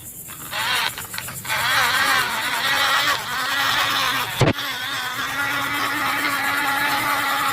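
Vehicle engine sound effect starting up and then running steadily, with a wavering whine over it and a single sharp click about halfway through.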